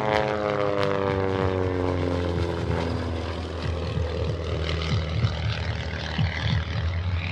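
Pitts aerobatic biplane's piston engine and propeller. Its note drops in pitch over the first three seconds or so as it flies by, then it settles into a rougher, steadier drone.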